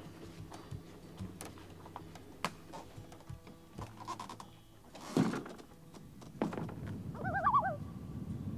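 Footsteps and light knocks on a forest trail, then a single heavy thump about five seconds in. Near the end a common loon gives its tremolo, a wavering, laughing call.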